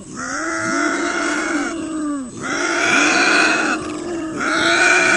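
Bobcats yowling at each other: three long, drawn-out calls in a row, each about a second and a half, rising and then sinking in pitch.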